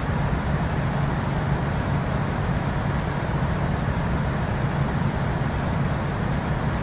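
Steady cabin noise inside a Boeing 787-9 airliner: even rushing engine noise with a low steady hum underneath.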